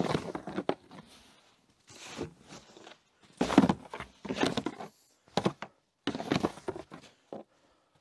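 Snow being swept off a tractor-mounted snowblower's housing with a brush, in about seven short, irregular swipes.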